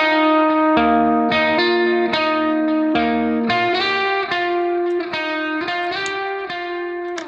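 Background music: a plucked guitar playing a melody of picked notes, a few notes a second, gradually getting quieter.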